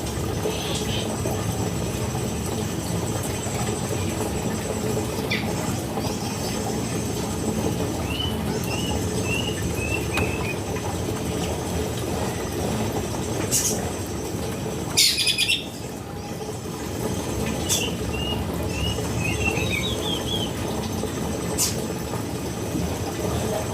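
A female cucak kinoy gives two short runs of quick, high chirps, with a few sharp flutters or clatters in between, likely its wings on the cage, over a steady rushing background noise.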